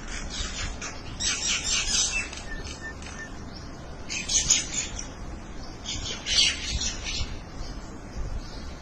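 Small birds chirping in quick bursts: four bouts of rapid high-pitched chirps, with pauses between them.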